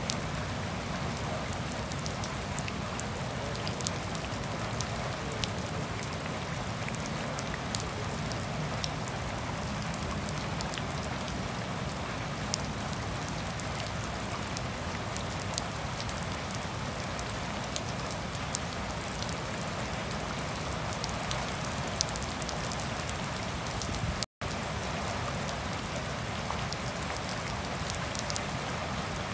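Steady gentle rain falling on wet grass, puddles and tree leaves, with scattered single drops ticking a little louder now and then. The sound cuts out for an instant late on.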